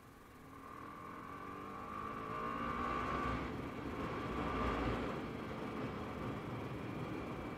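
TVS Apache RR 310's single-cylinder engine running as the motorcycle rides along, its note rising over the first few seconds and loudest around the middle.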